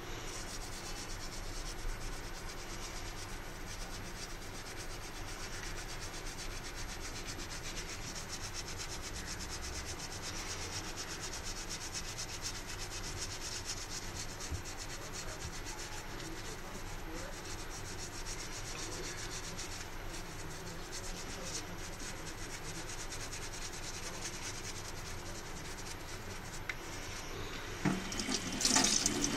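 Toothbrush bristles scrubbing a soapy fingertip in quick, steady strokes, working indelible ink off the skin. Near the end, water from the tap starts to run.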